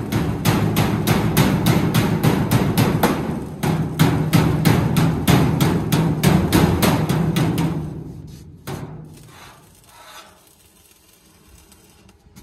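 A hand hammer striking the sheet-steel wall of a truck's cargo body at a corner seam, about four blows a second with the steel ringing under them. The hammering stops about eight seconds in, and a few faint knocks follow.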